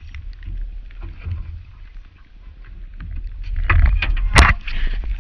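Low rumbling wind and water noise on a boat, with scattered clicks and knocks. A louder stretch of knocking sets in about three and a half seconds in, and one sharp knock near the end is the loudest sound.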